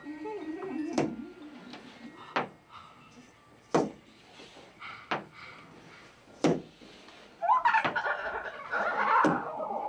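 Sharp, evenly spaced clicks, about one every second and a half, with a faint low wavering sound in the first two seconds. From about seven and a half seconds in, a woman's voice calls through cupped hands in a loud, wavering cry.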